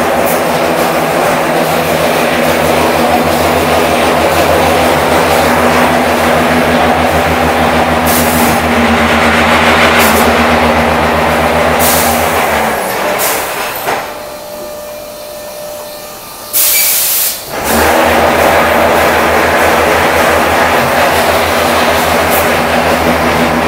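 Concrete block production machinery running with a loud, steady hum. About 13 s in the hum dies away for a few seconds, broken by a short loud burst of noise, then it starts up again.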